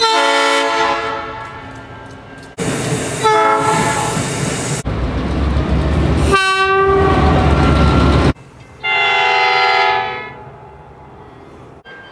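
A string of diesel locomotive horn blasts from several different trains, each a chord of steady tones, with abrupt changes from one recording to the next. In the middle a horn sounds over the loud rumble and wheel clatter of a train going by, its pitch dropping as the train passes.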